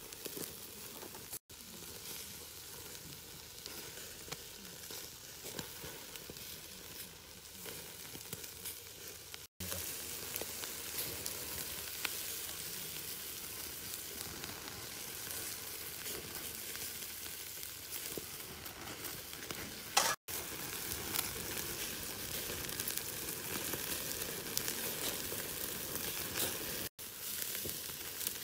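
Marinated duck pieces sizzling on a wire grill over an open wood fire, with fine crackling throughout and one sharper crack about twenty seconds in. The sizzle grows louder about ten seconds in and drops out for an instant several times.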